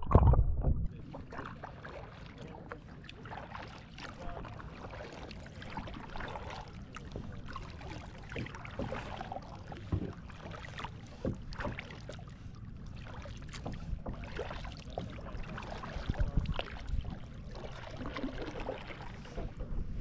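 Kayak paddling: irregular small splashes and drips of water from the paddle and against the hull, over a low rumble of wind on the microphone.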